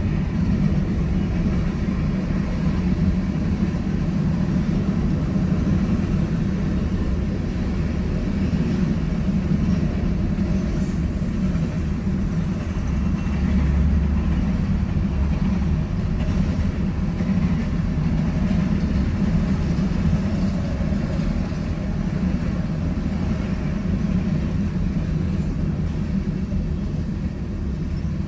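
Union Pacific freight train of tank cars and covered hoppers rolling past, a steady low rumble heard from inside a car.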